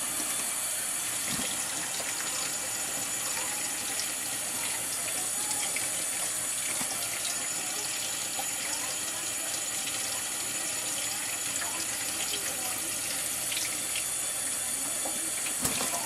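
Kitchen tap running steadily into a stainless steel sink.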